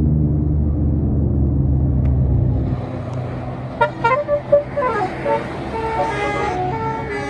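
A bus engine running low, then about three seconds in a 'telolet basuri' musical bus horn starts up: a quick run of short notes, then a tune of longer held notes.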